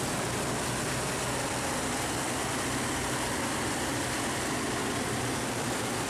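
Heavy rain falling steadily, with a truck's engine running low beneath it.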